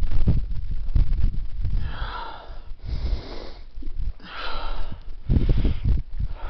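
A man breathing hard and panting from the exertion of climbing a steep slope, with several loud, hissing breaths in and out, over low thumps and rumble.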